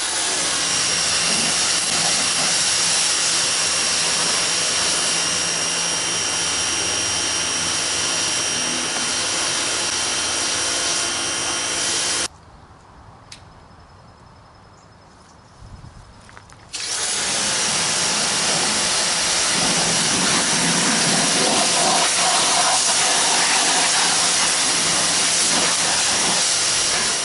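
Westforce 2800 PSI electric pressure washer running, its motor whine over the hiss of the water spray. About twelve seconds in it shuts off abruptly and stays off for about four seconds, then kicks back on: the pump runs only while the trigger is held and the pressure is low.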